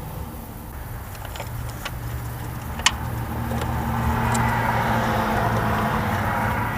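Steady low hum of a running motor vehicle, with a rushing swell like passing traffic in the middle and a few sharp metallic clicks, one louder about three seconds in.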